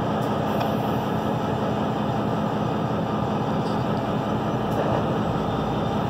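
EMD GP-series ("geep") diesel locomotives idling together in a steady, even low diesel drone.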